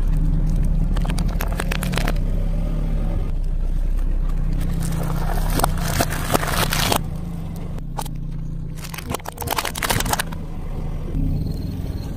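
Car tyre rolling slowly over objects and crushing them, with crackling and crunching over the low hum of the car's engine. There are three bouts of crunching; the middle one is eggs in a cardboard carton cracking and bursting under the tyre.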